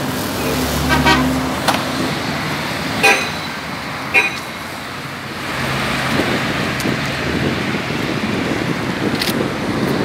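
Road traffic with vehicle engines running, and short car-horn toots about one, three and four seconds in.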